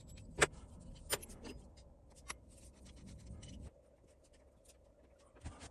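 Faint scratchy strokes of a small paintbrush dabbing paint onto the cast-iron frog of a hand plane, broken by a few sharp clicks, the loudest about half a second in and another near the end.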